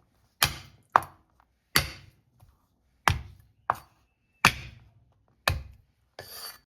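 Knife chopping on a cutting board: about eight separate chops at an uneven, unhurried pace, each a sharp knock with a low thud.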